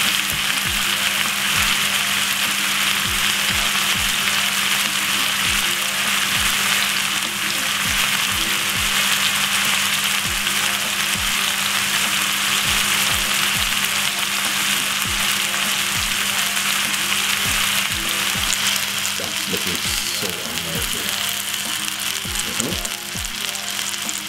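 A lamb joint searing in hot oil in a frying pan, sizzling steadily.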